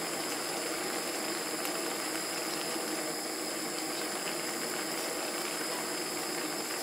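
Steady hiss of a gas stove burner under a pan of simmering soup, with a few faint clicks of a ceramic spoon working miso through a metal mesh strainer.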